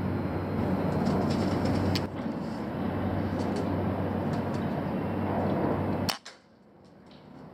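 Suppressed shots from a PCP air rifle: one sharp crack about 2 s in and another about 6 s in. A steady background rumble runs underneath and cuts off suddenly right after the second crack.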